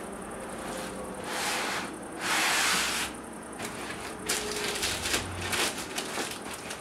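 Cardboard and white packing foam rubbing and scraping as a laptop held in foam end-caps is slid up out of its shipping box. There are two longer swishes in the first three seconds, then a run of light knocks and creaks as the pack is handled.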